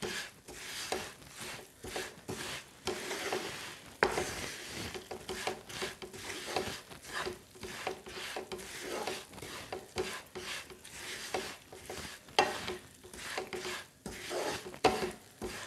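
A spatula scraping and stirring a thick, sticky mix of sesame seeds, crushed peanuts and jaggery syrup around a nonstick pan in quick, uneven strokes. The mixture is cooking down and starting to bind together into a mass for sesame laddus.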